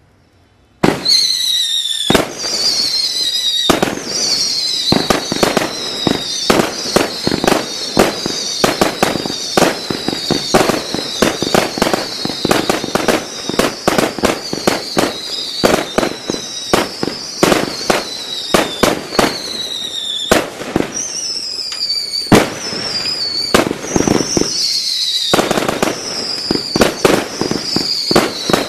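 Consumer display fireworks firing in quick succession: several sharp bangs a second, over whistles that keep recurring and each fall slightly in pitch. They start suddenly about a second in and go on without a break.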